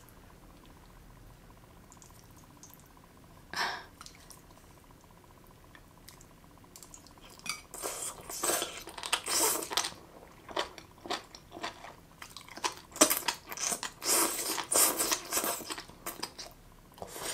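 Marinated jellyfish strips being slurped in and chewed: crunchy, wet mouth sounds in a quick irregular series starting about seven seconds in, after a quiet start broken by one short sound.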